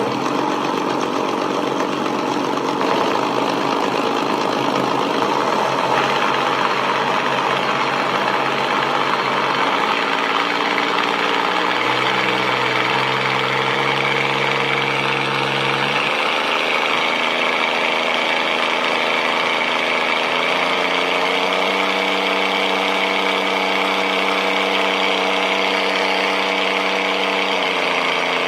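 Light aircraft engine running at a steady level, its pitch stepping down about twelve seconds in, then up again at about sixteen and twenty-one seconds, and dropping slightly near the end as the throttle setting changes.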